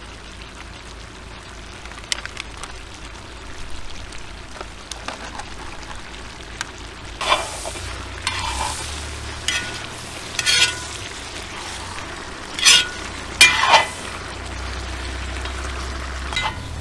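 Meat, carrots and onions sizzling in oil in a cast-iron kazan. From about halfway through, a metal slotted skimmer stirs them, with several short scrapes and clinks against the pot.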